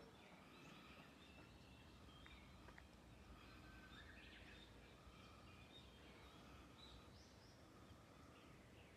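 Quiet outdoor ambience: faint bird calls and chirps over a low steady background rumble.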